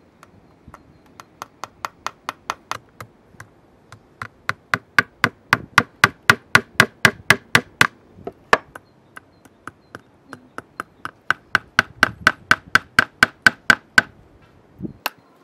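Hammer driving nails through a whole trout into a wooden plank, a rapid run of sharp taps at about three strikes a second that grows louder over the first few seconds, pauses briefly about nine seconds in, then resumes.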